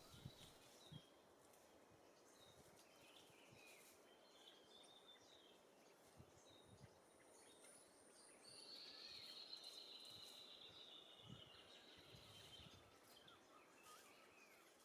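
Faint birdsong from the forest: scattered short high chirps, then a long, slightly falling trill about eight seconds in that lasts around four seconds.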